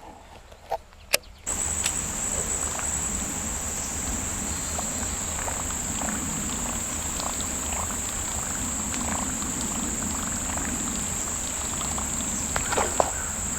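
Steady high-pitched insect chorus that cuts in abruptly about a second and a half in, after two sharp clicks.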